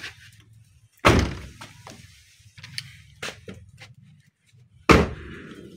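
Car door slammed shut twice, two loud thunks about a second in and near the end, with small clicks of the door handling between.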